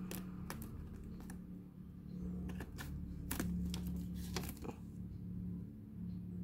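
Plastic shrink-wrap seal being slit with a blade and peeled off a cardboard box: irregular crinkles and sharp ticks, busiest around the middle, over a steady low hum.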